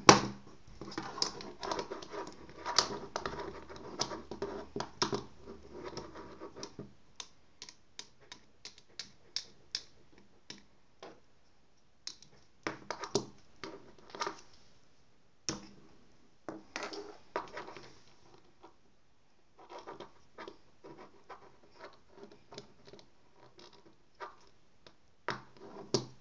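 A fountain pen and a ballpoint pen being flicked and pushed against each other on a tabletop, making irregular sharp clicks and taps. Between the clicks come stretches of scraping and rubbing as fingers and pens slide over the desk.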